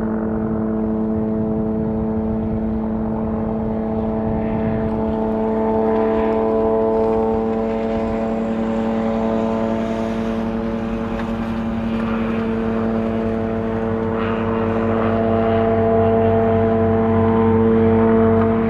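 MD 500E helicopter running steadily, its Allison 250 turboshaft and rotors making a constant buzzing drone with a steady pitch that swells slightly in loudness near the end.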